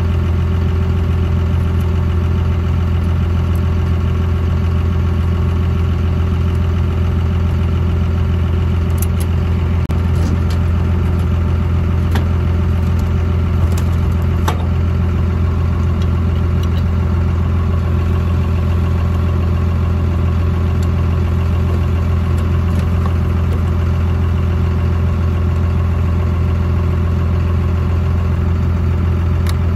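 Combine harvester's diesel engine running steadily, a loud constant low drone with a few faint ticks.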